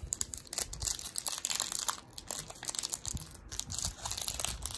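Foil wrapper of a Pokémon TCG Chilling Reign booster pack crinkling and tearing as it is opened by hand: a dense run of small crackles.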